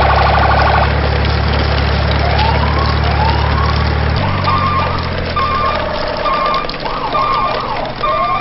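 Emergency vehicle sirens: rising wails repeat over a steady low engine rumble, which stops about four seconds in. A two-tone hi-lo siren then alternates with further rising wails.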